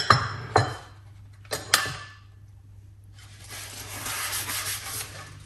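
A few light clicks and knocks of kitchenware, then a kitchen tap running, starting a little past halfway.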